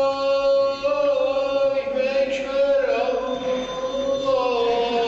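A man's voice chanting an Islamic prayer recitation: long held notes that slowly bend and glide in pitch.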